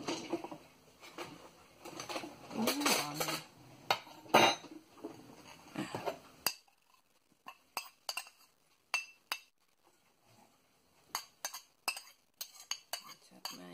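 Metal spoon clinking and scraping against ceramic bowls as grated coconut is scooped from one bowl into another, ending in a string of short, sharp clinks.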